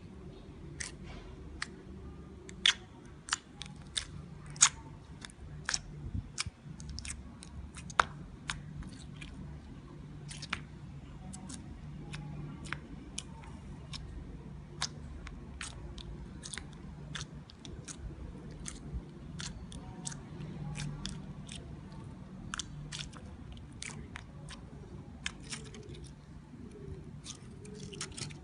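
Slime being pressed and stretched by hand, giving sharp, irregular clicks and pops, a few every second, as air pockets burst, over a faint steady low hum.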